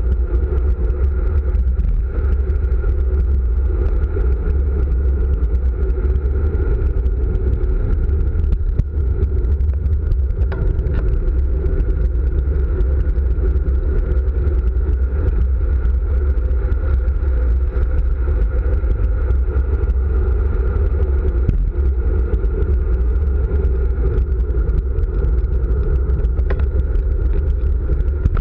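Steady wind rumble on a handlebar-mounted camera's microphone from the speed of a road-bike descent.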